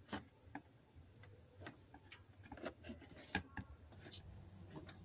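Faint, irregular metallic clicks from a socket wrench on the serpentine belt tensioner as it is turned to slacken the belt, with the sharpest click about three and a half seconds in.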